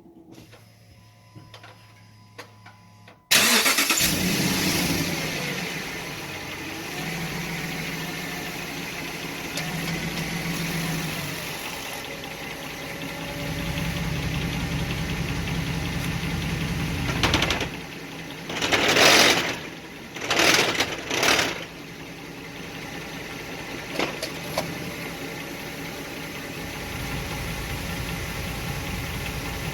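2006 Dodge Ram 1500 4x4 engine starting suddenly about three seconds in, then running with its level rising and falling, broken by a few short loud bursts of noise about two-thirds of the way through before it settles back to a steady run.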